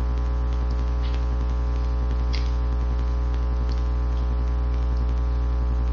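Steady electrical mains hum with a buzzy row of overtones, at an even level throughout, with a few faint clicks.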